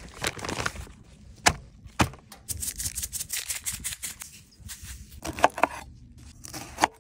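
Close-up food-prep sounds: butcher paper crinkling, a seasoning shaker rattling over raw steaks, and a knife cutting Brussels sprouts on a griddle top, with a few sharp knocks.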